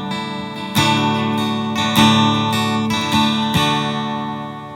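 Acoustic guitar playing the intro of a song: a handful of strummed chords, each left to ring out, fading away near the end.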